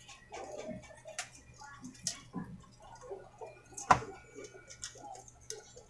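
Scattered light clicks and taps of plastic printer parts being handled and fitted together, with the sharpest click about four seconds in.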